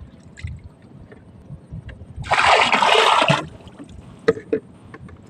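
Water splashing loudly for about a second, then two short knocks.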